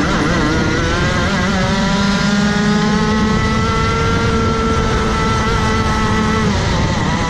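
Rotax Max Evo 125cc single-cylinder two-stroke kart engine at full throttle, heard from on board; its pitch climbs steadily as the kart accelerates, levels off at high revs, then falls near the end.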